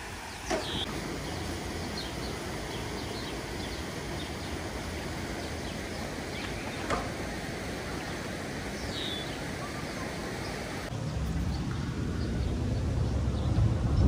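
Steady rush of water from the hydroelectric powerhouse's tailrace, with a few short bird chirps. Wind buffets the microphone over the last few seconds.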